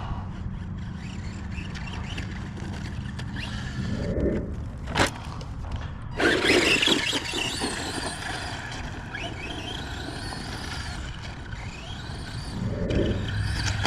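Tamiya Blitzer Beetle electric RC buggy driving on dirt, its motor whining up and down in pitch as the tyres spin and scrabble. There is a sharp knock about five seconds in, followed by a loud burst of spinning and scraping.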